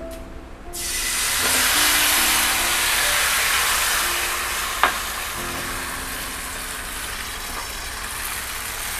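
Bánh xèo batter (rice flour mixed with beer) hitting a hot oiled pan. It breaks into a loud frying sizzle about a second in, then slowly eases off. One sharp clink comes about halfway through.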